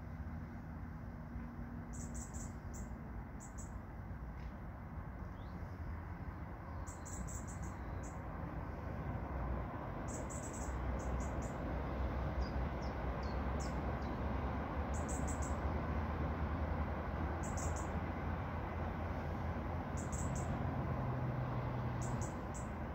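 Small bird chirping in short clusters of three or four high notes every two or three seconds. Underneath is a steady low outdoor rumble that grows a little louder about halfway through.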